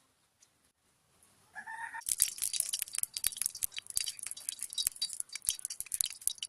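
Hot oil in a cooking pan starting to sizzle and crackle about two seconds in, a dense, irregular spatter that carries on, as an ingredient for egg fried rice hits the oil. Just before it, a brief high-pitched call.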